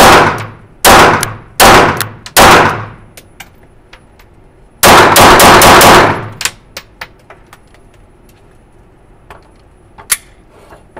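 Canik SFT Mete Pro 9 mm pistol firing: four shots about 0.8 s apart, then a rapid string of about six shots about five seconds in, each echoing off the walls of the indoor range. Light clinks and ticks follow.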